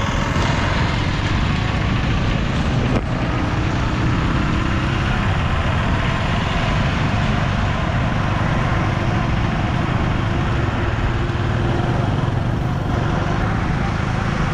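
A running motor vehicle: steady engine and road noise, with a single short knock about three seconds in.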